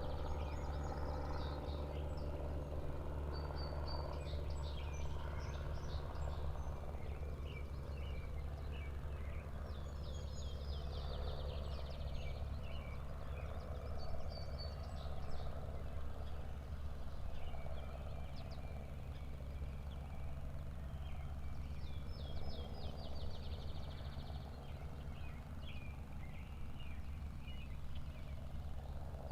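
Small birds singing, with short high chirps and trills coming again and again, over a steady low rumble.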